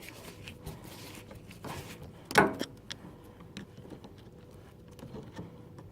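Small clicks and knocks of hands working a fuel-filter retaining clip into place on a car's fuel line, with one brief louder sound about two and a half seconds in.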